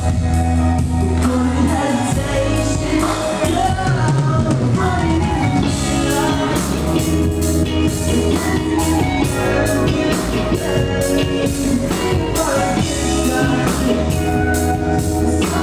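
A live rock band playing a song: a sung lead vocal over electric guitar, bass and a drum kit, with the drums growing more prominent about six seconds in.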